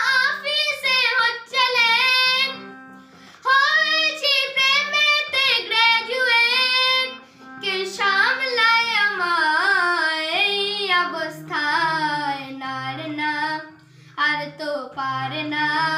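A boy singing a Bengali song in long notes that glide and waver in pitch, with low backing music sustained underneath.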